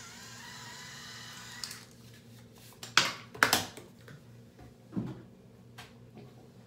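Handheld electric facial cleansing brush buzzing against the skin, its pitch wavering, then switched off with a click nearly two seconds in. A few loud knocks and clatters follow as things are handled and set down.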